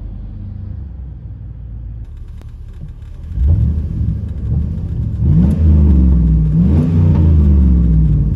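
GM 5.3-litre V8 idling with a low rumble, heard from inside the cab. About three seconds in it gives way to a louder straight-piped 5.3 V8 revved in about three blips, its pitch rising and falling and held up near the end.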